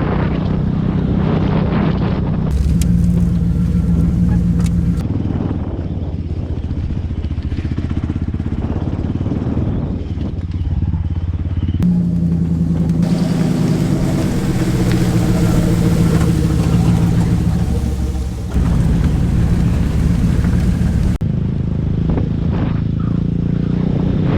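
Off-road vehicle engine running steadily at low revs, heard in several segments that change abruptly.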